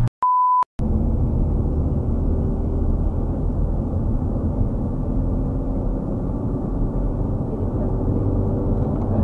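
A short single steady beep at the very start, then the steady rumble of a car driving at highway speed, its road and engine noise heard from inside the cabin.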